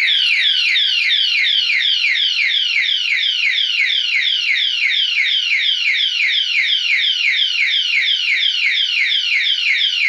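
Electronic siren of a tamper-alarm padlock going off at full volume, set off by the armed lock being touched a second time after its one-beep pre-warning. It starts abruptly with a loud, high-pitched wail that falls in pitch over and over, about three times a second, without letup.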